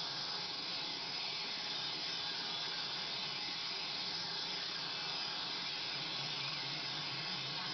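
Moog Mother-32 analog synthesizers putting out a steady, hissing noise texture as their knobs are turned. A faint low repeating tone comes in near the end.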